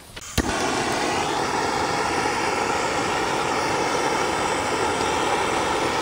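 Handheld butane gas torch starting with a sharp click about half a second in, then its flame hissing steadily.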